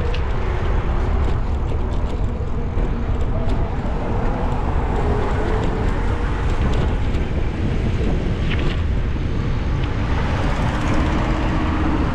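Car driving, with a steady low road and engine rumble.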